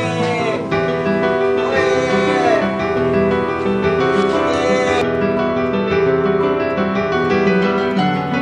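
Background music led by piano, with sustained notes.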